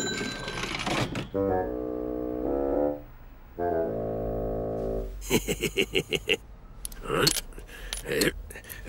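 Two short held brass notes of cartoon music, then a quick run of clicks and several separate clinks as coins are set down one at a time on a wooden counter.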